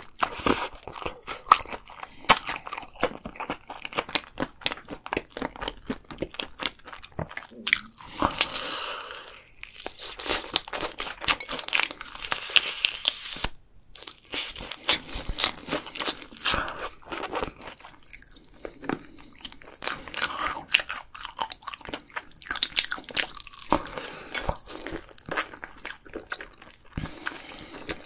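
Close-miked eating sounds: slurping a saucy noodle strand, then biting and chewing crunchy seasoned fried chicken. It is a dense, irregular run of wet crunches, crackles and smacks.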